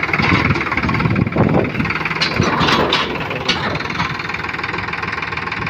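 Sonalika DI 734 tractor's three-cylinder diesel engine running steadily, heard close to the engine.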